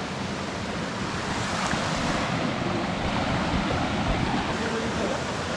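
Creek water pouring steadily over a rocky ledge and small cascades into a pool.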